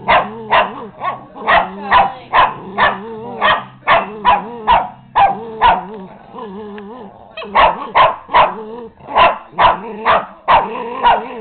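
Small dog barking in short, sharp barks about two a second, with low growling between them, in agitation at the other dog. The barking stops for a second or so past the middle, leaving the growl, then starts again.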